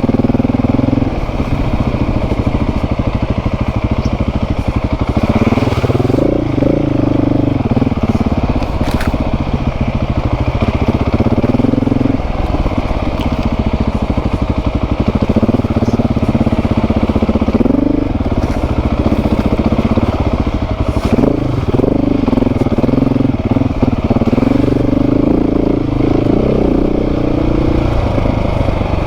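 Off-road motorcycle engine revving up and down as it climbs a steep dirt hill, the pitch rising and falling every few seconds.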